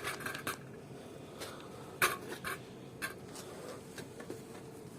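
Light clicks and knocks of the windscreen side trim being pulled up and handled, the loudest about two seconds in.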